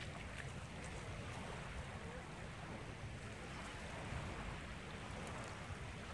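Small waves washing in over the sandy shallows in a steady hiss, with wind rumbling on the microphone and a few faint splashes near the start.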